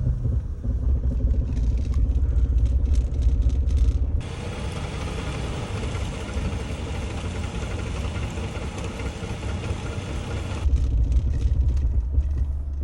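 Car on the move with a heavy low rumble and some clatter. About four seconds in it cuts abruptly to a steady hiss for about six seconds, then the low rumble returns.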